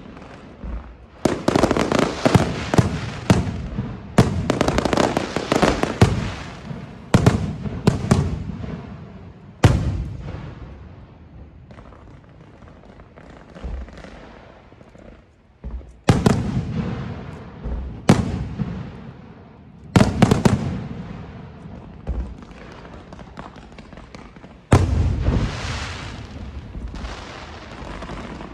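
Fireworks going off: a series of sharp bangs, each trailing off in a fading crackle and echo. The bangs come thick and fast at first, ease off for a few seconds in the middle, then return as single bursts every couple of seconds.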